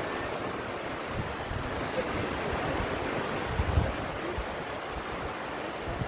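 Ocean surf washing steadily onto a sandy beach, with wind buffeting the phone's microphone in low gusts, strongest a little past the middle.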